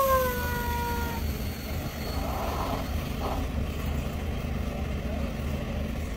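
Heavy-haul truck's diesel engine running with a steady low rumble as it moves a loaded multi-axle modular trailer. In the first second a tone slides slightly down in pitch and fades out.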